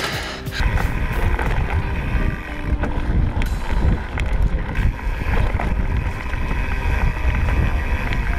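Wind buffeting the microphone of a bike-mounted camera and mountain-bike tyres rumbling over a dirt trail at speed, with scattered clicks and knocks. The rumble grows loud about half a second in.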